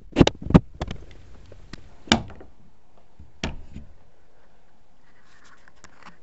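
A handful of sharp knocks and clicks, close together in the first second, then two single louder knocks about 2 and 3.5 seconds in. These are handling knocks from tools and the camera against the metal-sided wall and electrical box, with no drill motor running.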